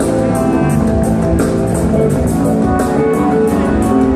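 Loud live band music: sustained guitar notes over a drum kit, with quick, even cymbal strokes a few times a second.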